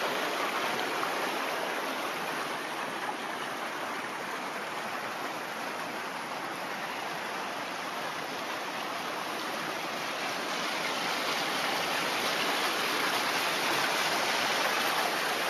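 Waterfall rushing steadily: a continuous, even roar of falling water, swelling a little toward the end.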